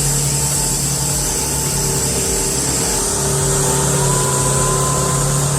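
Bulldozer's diesel engine running steadily under load on a climb, its pitch rising slightly about four seconds in.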